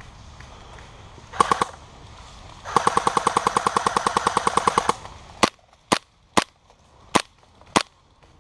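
KWA Skorpion gas blowback airsoft submachine gun firing: a short burst of about three shots, then a long full-auto burst of about ten shots a second lasting over two seconds, then five single shots.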